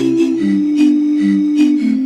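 Background music: sustained melodic notes over a steady beat.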